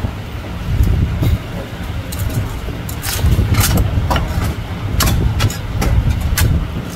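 Cleaver cutting crispy roast pork belly on a wooden chopping block: irregular sharp crunches and knocks, more of them after the first couple of seconds, over a steady low rumble.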